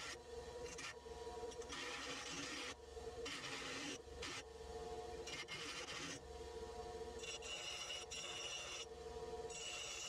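Bench grinder running with a steady motor hum while a small piece of metal is pressed against its grinding wheel, giving a rasping grind that comes and goes in several passes of a second or two with short breaks between them.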